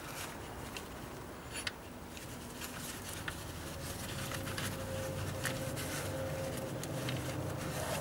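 Faint rubbing and light clicks of gloved hands working a ribbed rubber auxiliary drive belt over the engine's pulleys. A faint steady hum comes in about halfway through.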